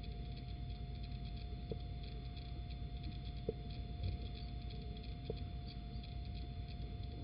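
Steady electrical hum and hiss from a nest-box camera's microphone, with a constant thin whine and faint small ticks about every two seconds.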